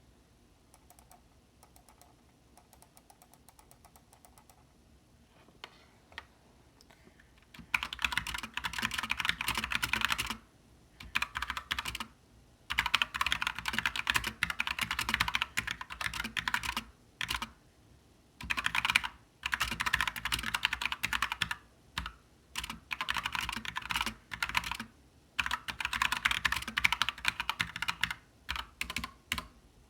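Typing on a GMMK mechanical keyboard with Gateron Black linear switches, stock ABS doubleshot keycaps and the stabilizers as they come from the factory. A few faint taps come first, then from about eight seconds in there are runs of fast keystrokes separated by short pauses.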